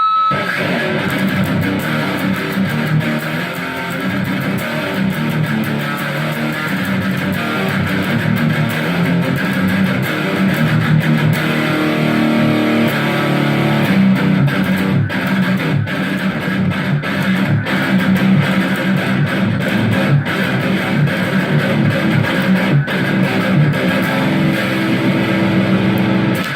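Electric guitar fitted with a custom high-output Dialtone pickup set, played through high gain: distorted riffs and chords.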